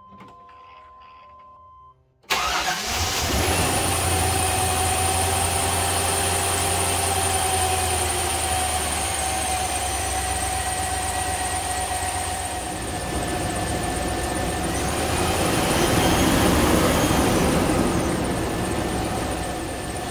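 A freshly tuned-up 2000 Chevrolet Tahoe's 5.7-litre V8 starts right up about two seconds in, then runs at a fast idle that gradually comes down and settles smooth. A steady high squeal from the accessory belt runs over it; the belt is 'squeaky as hell'.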